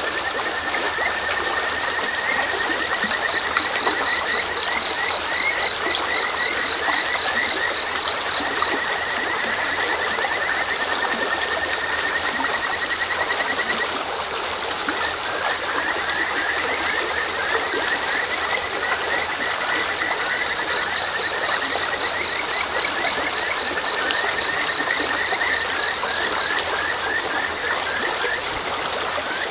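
A mountain stream babbling steadily, with a kajika frog (Buergeria buergeri) calling over it in long series of rapid, repeated short whistled notes: one series runs to about the middle, and a second starts just after and runs to near the end.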